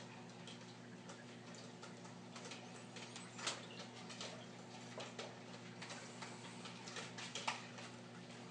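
Faint steady hum of running aquarium equipment, with irregular small clicks and ticks over it.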